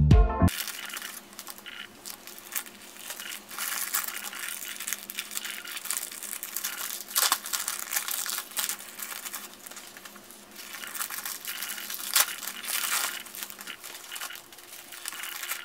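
Clear plastic packaging crinkling as it is handled and pulled off sheets of postage stamps, with a few sharper crackles about seven seconds in and again around twelve seconds.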